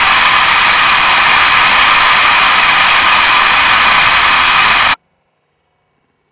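Loud, steady static-like hiss, cutting off abruptly about five seconds in, followed by silence.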